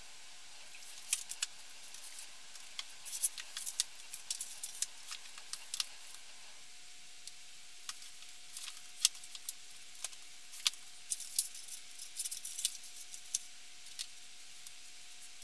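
Irregular light clicks and clatter of books and small objects being handled and set on a shelf, coming in scattered clusters over a faint steady hum.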